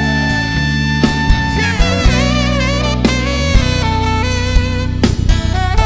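Live band playing an instrumental break of a slow R&B ballad: a lead melody with vibrato weaves over held bass and chords, with steady drum hits.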